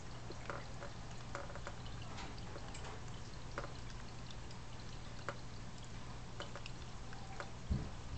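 Water trickling and dripping steadily in a fish tank over a constant low hum, with scattered small clicks and a brief low thump near the end.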